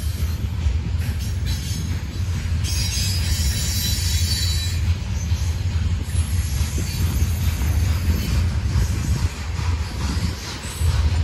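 Norfolk Southern freight train rolling past, its cars making a steady low rumble on the rails. A high squeal of wheels on the rail comes in from about three to five seconds in.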